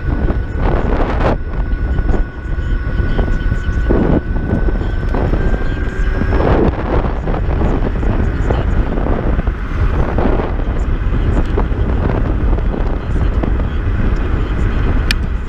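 Riding noise from a Kaabo Mantis Pro electric scooter at speed: loud wind buffeting on the microphone with uneven surges, and a thin high whine that rises slightly and drops out about six seconds in.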